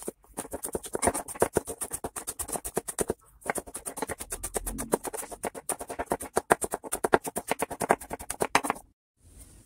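Rapid knife strokes mincing garlic on a white plastic cutting board, about eight chops a second, in two runs with a brief pause about three seconds in, stopping just before the end.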